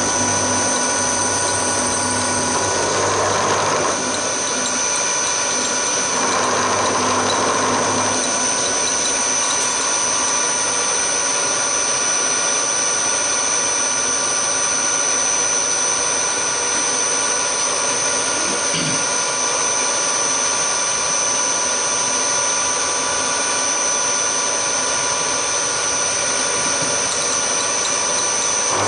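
Hafco HM 54GV milling machine running, its end mill cutting aluminium as the table feeds: a steady machine whine with several high steady tones. The cutting noise swells twice in the first eight seconds.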